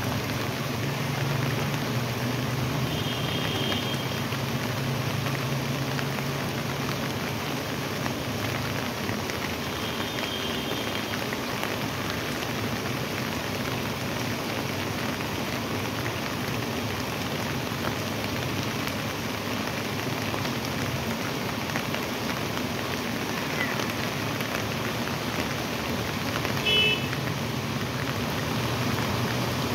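Floodwater rushing steadily down a flooded street channel and pouring from a wall culvert, an even rush of water. A few brief high beeps sound about three and ten seconds in, and a louder one near the end.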